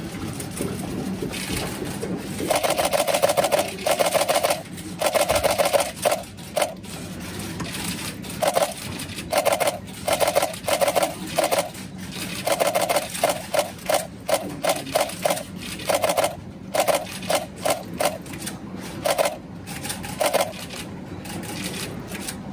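A camera shutter firing in rapid bursts of continuous shooting. More than a dozen bursts, from a fraction of a second to about a second long, begin a couple of seconds in, over a low steady room hum.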